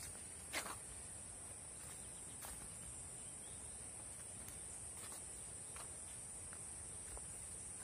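Steady high-pitched drone of forest insects, with a few short soft taps, the loudest about half a second in.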